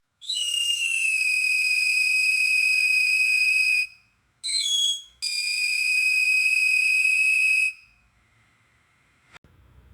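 Metal marina gate's hinge squealing as the gate swings: three long, steady, high-pitched squeals, the first about four seconds long, a short one, then one about two and a half seconds long. A faint click follows near the end.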